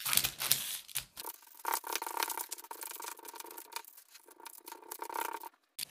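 Baking paper crinkling and rustling, with soft pats and scrapes, as hands press and shape a raw ground-beef patty on it. The sounds come irregularly and cut off just before the end.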